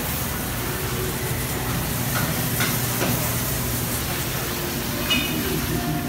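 Supermarket background noise: a steady low hum and even hiss from the store's refrigerated display cases and ventilation, with a few faint ticks.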